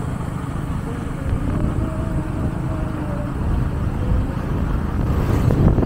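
Motorcycle running along the road, heard from on board: a steady engine and road rumble that grows louder near the end.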